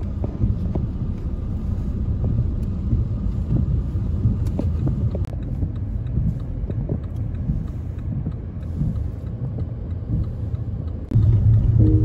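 Low, steady rumble of a car driving on wet roads, heard from inside the cabin, with scattered light ticks. Near the end, music comes in suddenly and is louder than the rumble.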